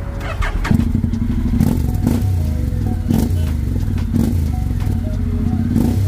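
Honda Integra 750's parallel-twin engine running at idle through an aftermarket 'Devil' carbon slip-on exhaust: a deep, even note that steps up in loudness under a second in, with a few short sharp cracks over it.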